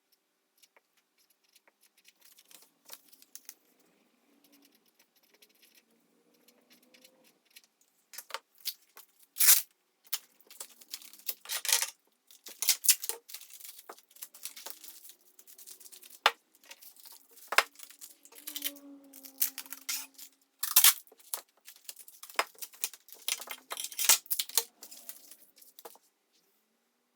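Plastic packaging and bags of frozen food being handled: irregular crinkling, rustling and sharp clicks and knocks, sparse at first and busier from about a third of the way in.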